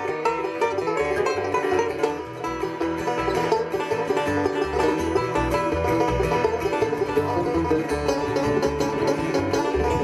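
Bluegrass played on banjo and upright double bass: the banjo picks a steady stream of quick notes over the bass's plucked low notes.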